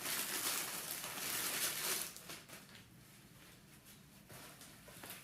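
Rustling and handling of packaging as items are taken out of an unboxed golf subscription box, fading to quiet after about two seconds.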